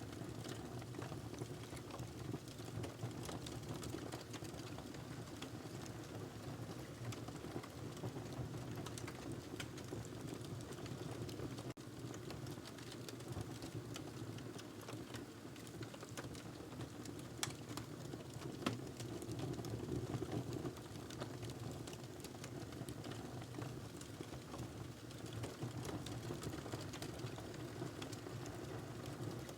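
Wood fire burning in a fireplace: a steady low rumble with irregular crackles and snaps, a few louder pops about two-thirds of the way through.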